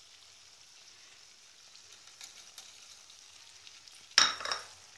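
Faint sizzling of onions and capsicum in a wok on low heat, then about four seconds in a brief louder burst of sizzle and spoon scraping as the mix is stirred.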